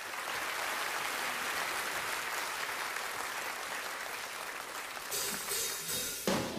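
A crowd applauding steadily, fading in at the start, with music beginning at the very end.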